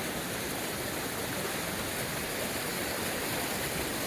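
Swift, rain-swollen creek rushing steadily around a hiker wading knee-deep through it.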